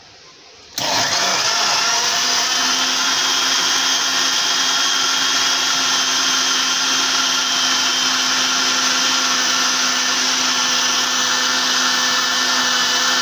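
Sujata mixer-grinder blending chopped mango with milk and sugar: the motor starts abruptly about a second in, runs loud and steady, and cuts off suddenly at the very end.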